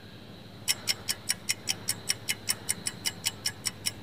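Countdown timer ticking sound effect: a rapid, even clock tick, about five ticks a second, starting just under a second in.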